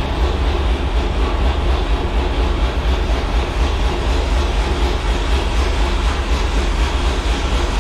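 Steady, loud low rumble of a vehicle running, with no change in pitch.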